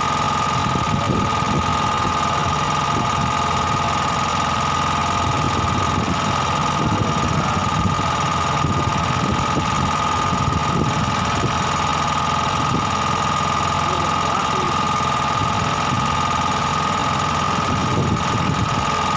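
A small engine running steadily on the boat: a constant high hum over a low rumble.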